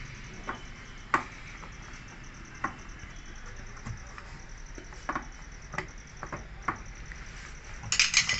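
Scattered light clicks and knocks of hand work on a front-load washing machine, with a quick run of louder rattling clicks near the end. A faint rapid high ticking goes on behind.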